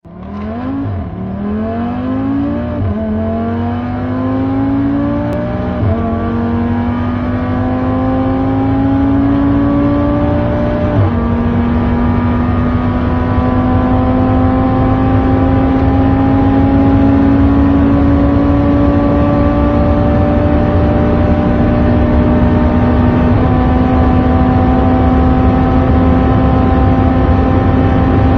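Audi RS3's turbocharged 2.5-litre five-cylinder engine at full-throttle acceleration. The engine note climbs steadily and drops sharply at each of about five upshifts, and each gear pulls longer and more slowly as speed builds.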